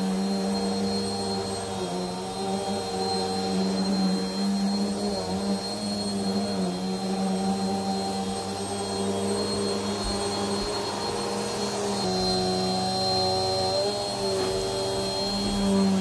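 Upright vacuum cleaner running on a carpeted rug: a steady motor hum whose pitch shifts slightly as it is pushed back and forth.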